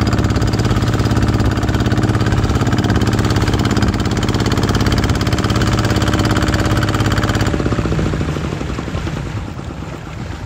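Kubota single-cylinder diesel engine of an outrigger fishing boat running steadily with a rapid even beat, then shut off about seven and a half seconds in and dying away, leaving wind and water noise.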